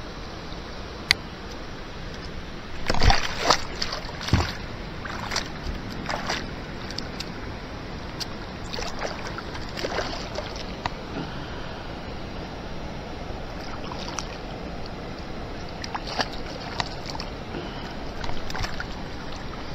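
Water splashing and sloshing beside a kayak as a hooked fish thrashes at the surface and is reached for by hand, with scattered sharp splashes and knocks, the loudest cluster about three to four seconds in.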